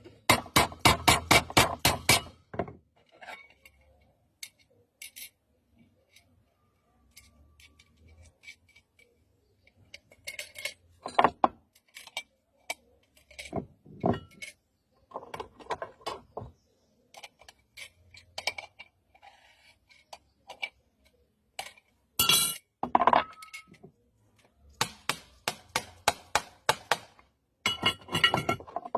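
Metal clinks and knocks from handling a pressure cooker and its lid: a quick run of even taps at the start, then scattered clicks, with one loud knock a little past the middle.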